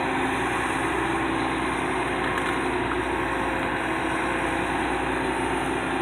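John Deere S670 combine harvester running steadily as it harvests wheat: an even engine and machinery drone with no change in pitch or level.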